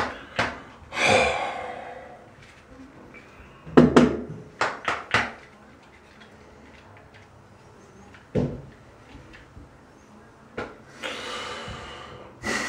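Handling noise: a few sharp clicks and knocks, with long breathy blows that fade out between them, while a dead electric shaver and the handheld camera are fiddled with.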